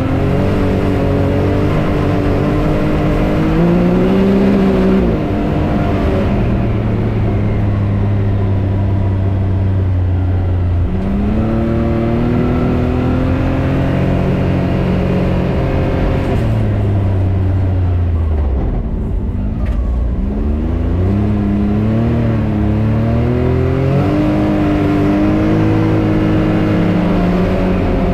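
Turbocharged three-cylinder engine of a Can-Am Maverick X3 Turbo RR side-by-side running under way, its pitch rising and falling several times as it speeds up and slows, with a low dip about two-thirds of the way through.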